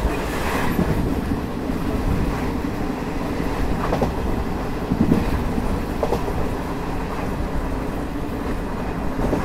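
Passenger train running at speed, heard from the open coach door: a steady rumble of wheels on the rails, with a few louder clacks near the middle.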